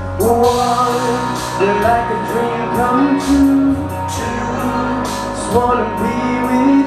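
A man singing karaoke into a microphone over a music backing track, played loud through the club's sound system.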